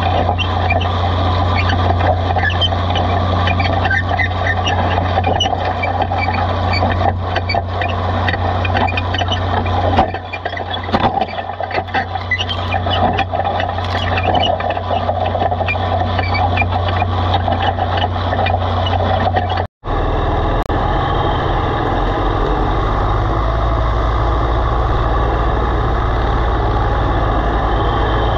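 Cockshutt 1850 tractor's engine pulling a moldboard plow through sod, a steady drone with many small clicks and rattles from the plow frame. About twenty seconds in, a sudden cut to an Oliver Super 55 tractor's engine working steadily under plowing load, lower in pitch.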